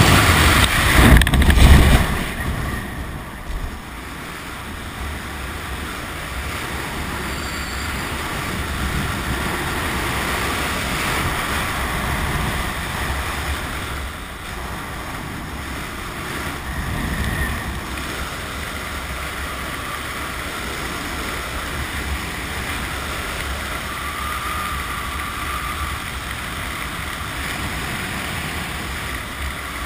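Freefall wind rushing over a helmet camera's microphone. It drops off sharply about two seconds in as the parachute opens, and softer steady wind noise continues under the open canopy.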